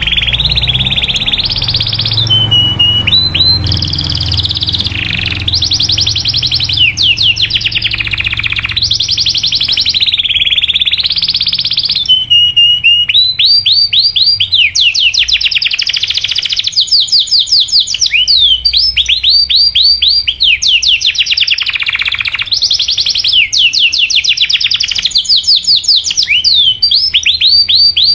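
Domestic canary singing a long, unbroken song of rapid trills, each phrase a fast run of repeated sweeping notes that changes pitch and pattern every second or two.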